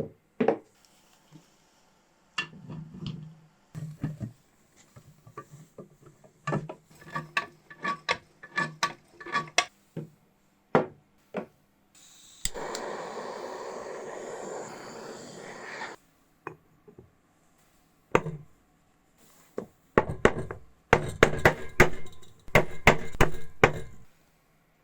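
Hand work on engine parts: scattered taps and knocks of tools and metal parts, a steady hiss lasting a few seconds in the middle, then a quick run of knocks near the end.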